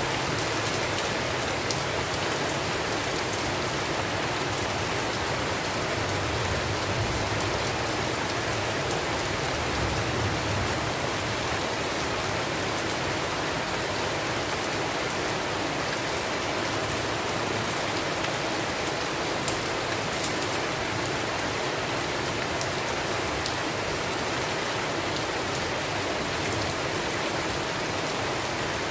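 Steady rainfall, an even hiss of rain with scattered sharper drop ticks.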